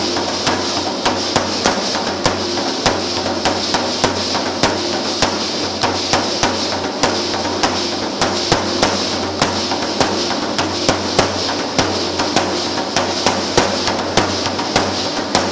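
Matachines dance percussion: sharp clacks in an even beat, about two to three a second, over a continuous rattling hiss and a steady low hum.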